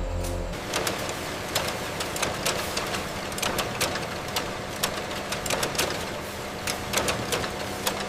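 Workshop machinery running with a steady low hum, over which come many irregular sharp clicks and taps.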